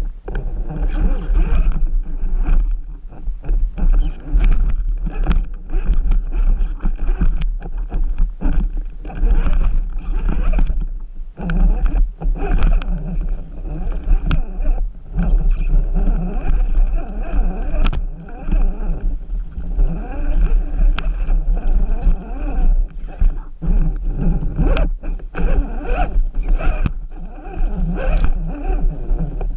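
RC rock crawler's drivetrain running continuously as it works over the course, with a steady hum and frequent knocks and scrapes from the chassis and tyres on the terrain, heard through the crawler's own onboard camera.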